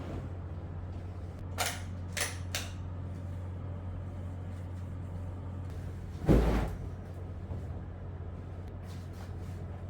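Household handling noises from room cleaning: three light knocks in quick succession, then a single louder, heavier thump a few seconds later, over a steady low hum.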